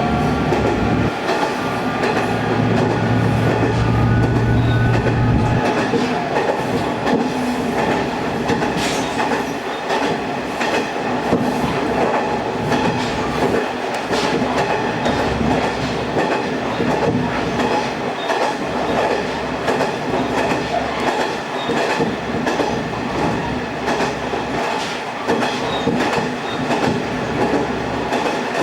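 Kuma River Railway diesel railcar on the move: steady engine drone and running noise, with wheels clicking over the rail joints. A deep low engine hum stands out for a few seconds near the start, then drops away.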